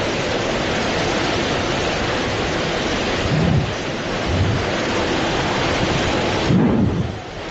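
Hurricane-force wind and driving rain, a loud steady rush. Gusts buffet the microphone with low rumbles a few times, the strongest near the end.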